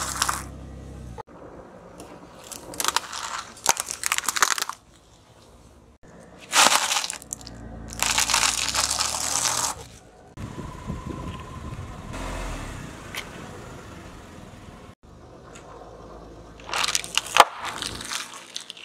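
Car tyre rolling over and crushing piles of crunchy snacks: several bursts of crackling crunches, each one to two seconds long, with a quieter stretch in the middle.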